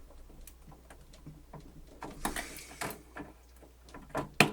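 Parts of a cassette deck being handled and worked loose during disassembly: scattered small clicks, a scraping slide about two seconds in, and a sharp click near the end.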